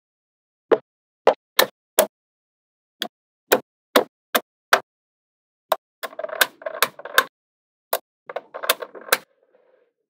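Small magnetic balls snapping into place with single sharp clicks, about ten spread over the first six seconds. Twice in the second half comes a quick run of rattling clicks as a group of balls clacks together.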